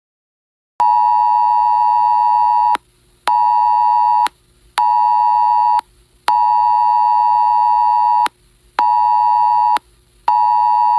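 A phone's Wireless Emergency Alert attention signal: a loud, harsh tone of two close pitches sounded together, starting about a second in. It comes in a long-short-short pattern played twice, one two-second blast then two one-second blasts, with short gaps between them. Here it announces a tornado warning.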